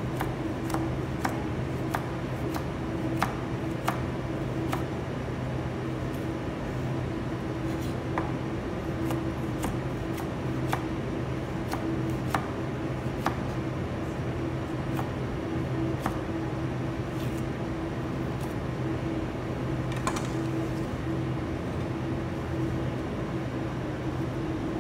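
Kitchen knife slicing green bell pepper on a plastic cutting board: sharp taps of the blade on the board, frequent at first and sparser in the second half, over a steady fan hum.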